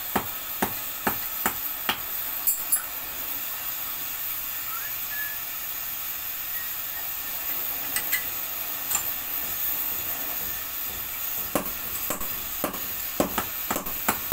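Sharp knocks, about two a second, for the first couple of seconds. They stop for about nine seconds, leaving only a steady hiss, then start again near the end.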